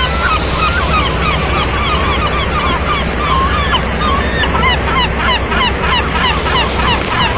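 A flock of seagulls calling, many short cries overlapping without pause, over a steady rush of sea water and wind.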